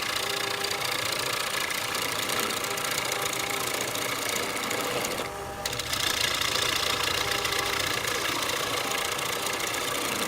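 Wood lathe running and cutting wood: a steady motor whine with a fast, even chatter of the cutter on the wood. The high-pitched cutting noise drops away briefly about five seconds in, then resumes.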